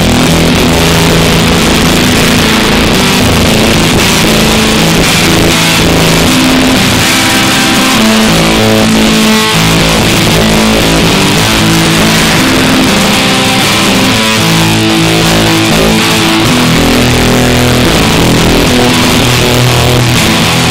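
Electric guitar played with a dense, noisy tone: held notes shifting every second or two over a constant hiss, at a steady loud level.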